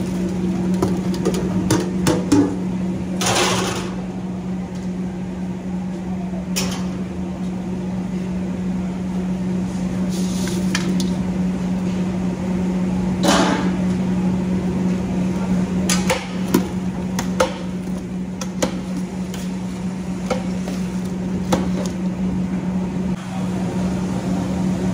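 Fried potato cubes slide from a steel hotel pan into a large steel stockpot of curry sauce and are stirred in with a long steel ladle, giving occasional scrapes and clanks of metal on metal. The loudest clatter comes about three seconds in and another about thirteen seconds in. Under it all runs a steady kitchen machine hum.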